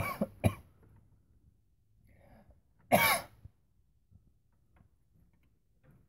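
A person coughing: two short coughs at the start, then a longer, louder cough or throat-clear about three seconds in.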